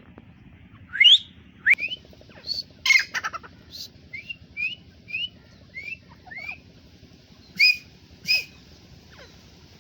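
Francolin calling: a series of about a dozen short, shrill notes, each rising quickly in pitch, with the loudest notes about a second in and two more near the end.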